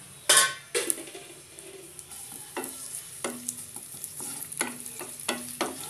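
Sliced onions sizzling in hot oil in a non-stick wok, early in being fried crisp for beresta, while a wooden spatula stirs them. The spatula knocks and scrapes against the pan several times, with the loudest clatter just after the start.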